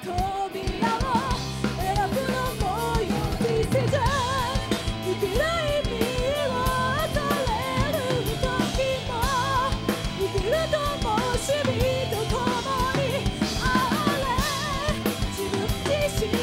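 Live rock band playing a song: a woman singing lead over electric guitar, bass guitar and a drum kit, with a steady beat throughout.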